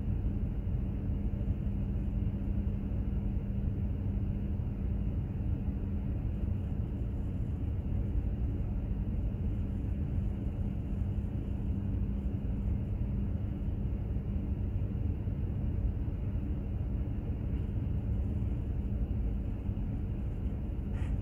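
Container ship under way: a steady low rumble of engine and hull noise with a constant low hum.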